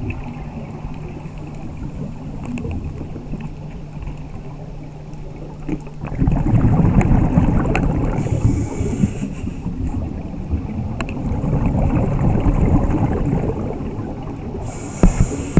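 Scuba diver's regulator breathing heard underwater: a steady low hum for about six seconds, then loud rumbling exhaled bubbles that swell and ebb, with short high hisses of air through the regulator.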